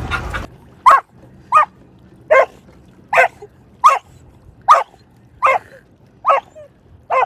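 Australian shepherd–border collie mix dog barking while swimming in the sea: nine short barks in a steady rhythm, a little more than one a second. A rush of noise cuts off about half a second in, before the first bark.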